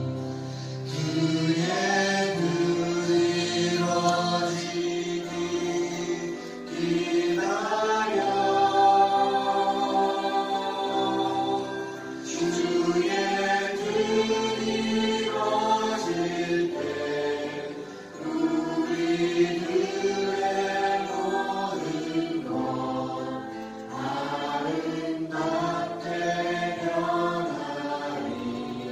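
Praise team of several voices singing a worship song together over live band accompaniment, in sung phrases a few seconds long with short breaths between them.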